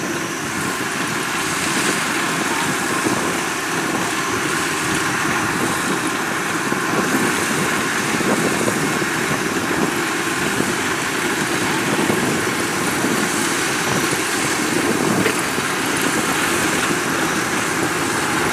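Combine harvester running steadily while harvesting rice: a continuous engine and machinery drone with no breaks.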